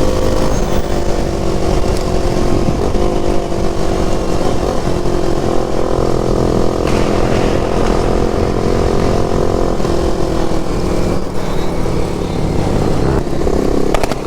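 Sport motorcycle engine running under way at a fairly steady speed, its pitch easing slowly down, over the low rumble of wind noise.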